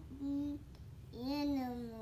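A child humming a tune: a short held note, then a longer note that slides slowly downward.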